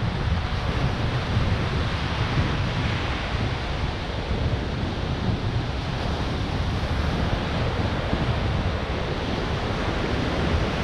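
Ocean surf breaking and washing onto a sandy beach in a steady wash of noise, with wind rumbling on the microphone.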